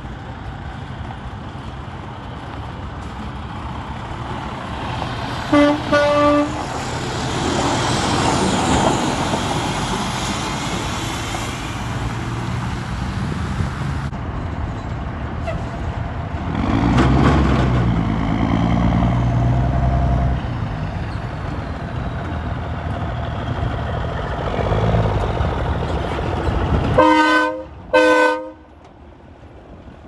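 Semi trucks' diesel engines rumbling past, one swelling louder about halfway through. Air-horn blasts sound twice: two short toots about six seconds in, and two louder, multi-note blasts near the end as a Peterbilt tractor passes close.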